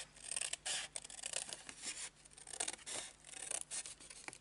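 Scissors cutting through cardstock in a quick, irregular run of short snips, with the paper rustling as it is handled.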